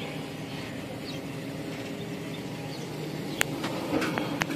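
A vehicle engine idling steadily, most likely the tow truck standing by, with a sharp click a little over three seconds in and another near the end. Birds chirp faintly.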